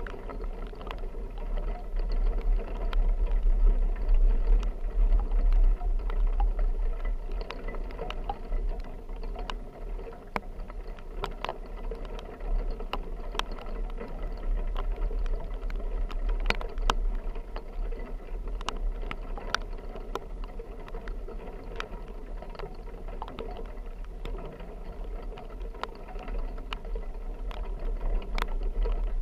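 A vehicle driving through a rainstorm: a steady low rumble under a wash of noise, with scattered sharp taps that fit raindrops striking the vehicle.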